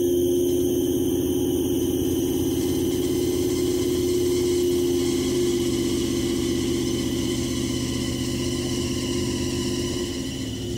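1986 Chevrolet Caprice Classic's engine running at a steady idle after sitting unstarted for a year, easing slightly in level near the end.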